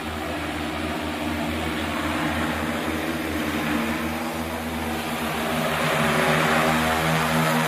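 Agricultural spray drone's multirotor propellers humming steadily in flight, with several steady low tones, getting louder over the last few seconds as it comes close overhead.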